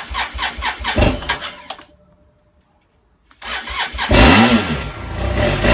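Cold start of a BMW F800GS parallel-twin engine: the starter cranks it in quick even pulses for about two seconds without it firing, then after a short pause cranks again and the engine catches about four seconds in, revs up and falls back, and keeps running.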